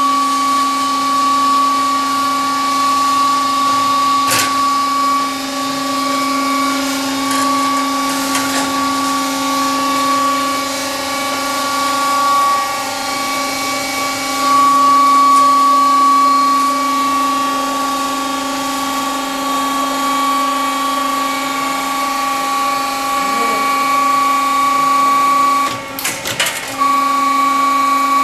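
Mobiprof SPP roll-forming machine for steel reinforcing profiles running steadily, a constant high motor whine with a few clicks. Near the end the whine breaks off briefly with a clatter, then resumes.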